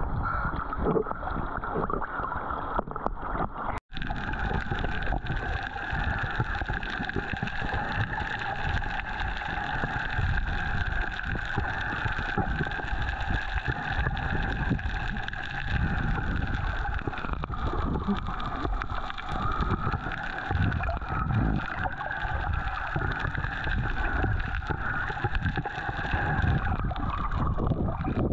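Boat engine running steadily: a constant droning whine over low rumbling, broken by an instant's dropout about four seconds in.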